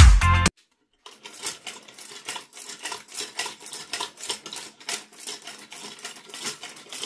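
Dance music cuts off about half a second in. Then comes a quiet, quick run of light metallic clicks and clinks, several a second, from a hand-cranked automaton built from tin cans and bent wire as its crank and wire linkage are turned.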